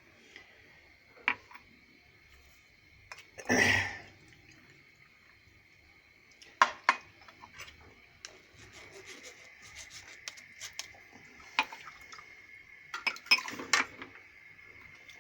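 A drinking glass being handled and drunk from: scattered light clinks and knocks of the glass, one breathy gasp about three and a half seconds in, and a cluster of clicks near the end, over a faint steady high hum.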